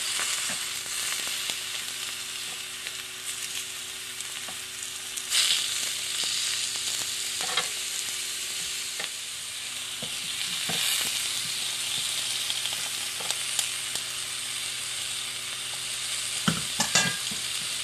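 Vegetables and oyster mushrooms sizzling on the hot plate of a Starfrit Rock smokeless electric grill, a steady frying hiss, with a few light knocks scattered through as the food is moved on the plate.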